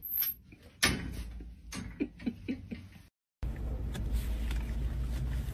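Metal baby gate clicking and rattling as a dog works at it: one sharp click, then a quick run of short knocks. After a brief break, a steady low rumbling noise.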